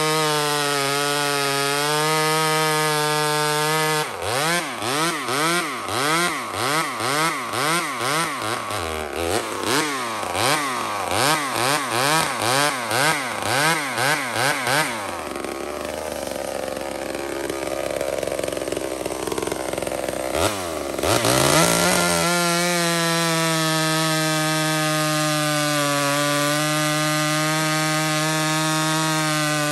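Homelite XL76 two-stroke chainsaw cutting through a log at full throttle. About four seconds in, the revs begin swinging rapidly up and down for some ten seconds, then drop to a low, rough running. A little after twenty seconds the saw is revved back up and cuts on at steady high revs.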